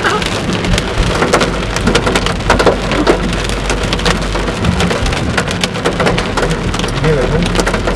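Hailstones pelting the car's roof and windscreen, heard from inside the cabin: a dense, irregular clatter of sharp ticks over the low, steady drone of the moving car.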